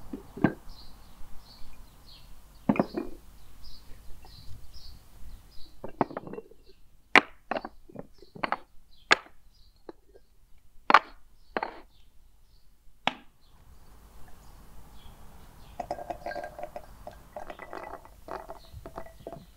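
Kitchenware clinking and knocking: about a dozen sharp, separate clinks near the middle, then softer clattering with some ringing near the end. For the first few seconds a high chirp repeats two or three times a second.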